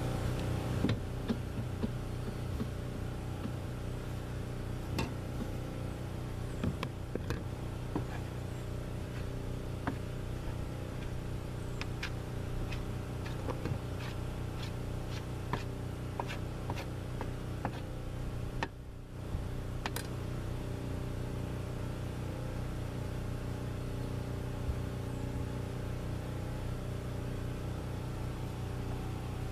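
A small engine running steadily with an even low hum. Over it comes a regular run of light clicks, about two a second, midway through.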